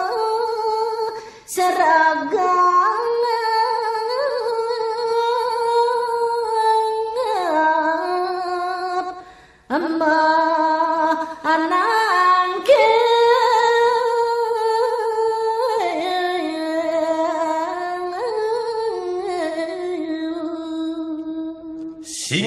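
A woman singing Balinese geguritan verse unaccompanied: a slow, ornamented melody of long held notes that glide between pitches, broken by short breaths twice, about a second and a half in and again near ten seconds.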